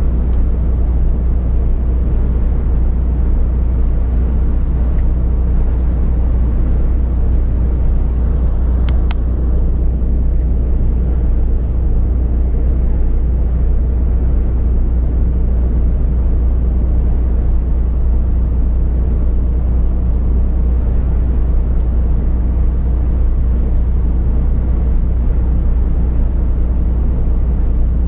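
Heavy truck cruising on the motorway at about 90 km/h: a steady low drone of engine and road noise heard inside the cab.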